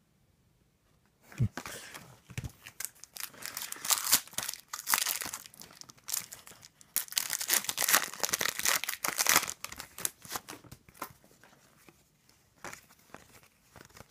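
A trading-card pack wrapper being torn open and crinkled: a dense run of tearing and crackling starts a little over a second in, with two soft thumps at its start, and thins to scattered crinkles over the last few seconds.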